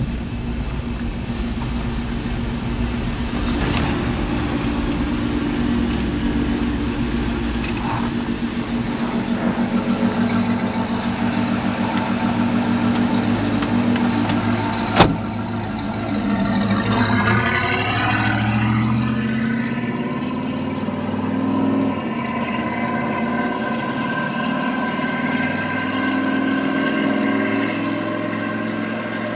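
Chevy 350 crate V8 in a 1946 Chevy pickup running steadily, with one sharp click about halfway through.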